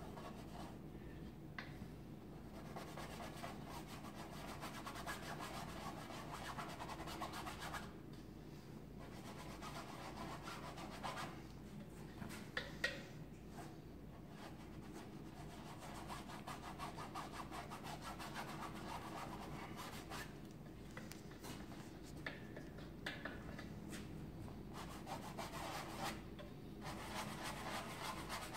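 Paintbrush bristles scrubbing against canvas in scratchy strokes, in runs of a few seconds broken by short pauses, over a low steady hum.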